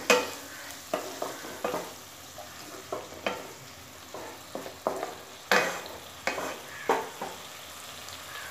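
A spatula scraping and knocking against a nonstick kadai as chopped tomato is stirred into onion masala frying in oil, over a steady sizzle. The strokes come irregularly, the loudest right at the start and about five and a half and seven seconds in.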